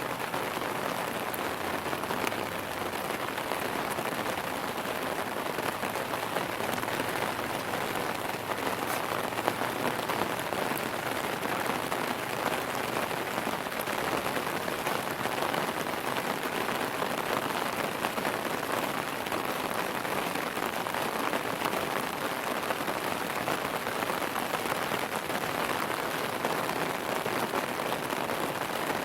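Steady rain falling on a hard surface: an even hiss of many drops with fine scattered patter, unchanging throughout.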